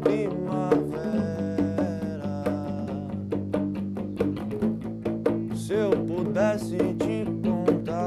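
Small band playing an instrumental passage: electric guitar and bass guitar over congas struck by hand in an even, steady rhythm.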